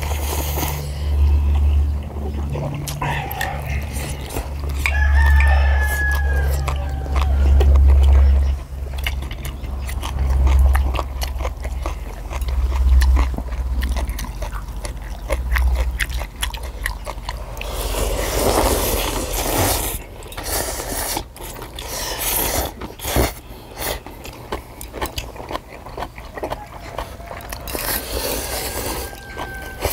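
People slurping and eating spicy instant ramen noodles, with loud slurps about 18 and 28 seconds in and light clicks of metal chopsticks on metal plates. Wind gusts on the microphone make a low rumble through the first half.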